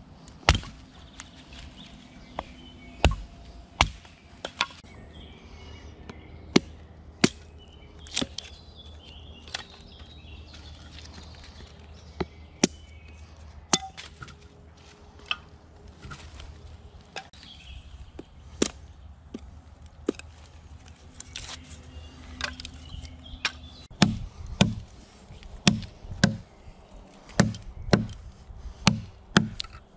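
Fiskars X5 camping axe chopping into wood: a series of sharp blade strikes, spaced out at first, then coming quickly and evenly, about one and a half a second, near the end.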